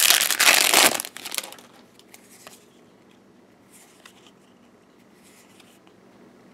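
Foil trading-card booster pack wrapper crinkling loudly for about a second as it is torn open, then a few soft rustles as the cards are handled.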